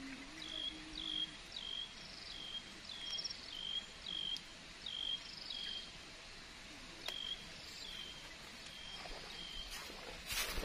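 A bird calling a long series of short falling whistled notes, about two a second, with a pause about halfway through, over faint outdoor background noise. A burst of noise comes in near the end.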